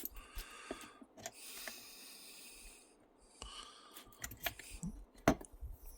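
Soft breathing through the nose, three long breaths, with a few light clicks of the chainsaw's piston and wrist pin being handled and slid into place.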